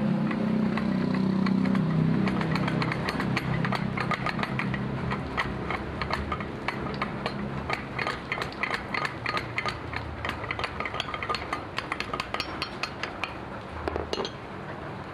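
Rapid, irregular light metallic clicks and taps of hand tools working on metal, several a second, stopping near the end. A low hum fades out in the first few seconds.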